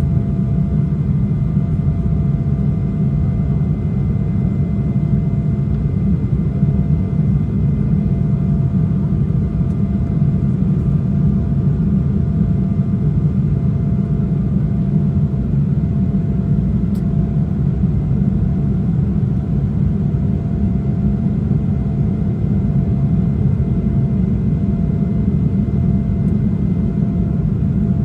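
Steady cabin roar inside an Embraer E175 airliner, its two GE CF34-8E turbofan engines running at high thrust. A deep, even rumble carries a few faint, steady whining tones on top.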